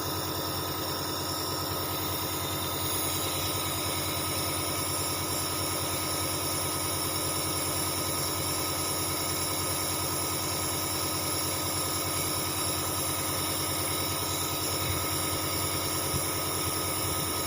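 Dr Trust compressor nebulizer's compressor running with a steady, even hum.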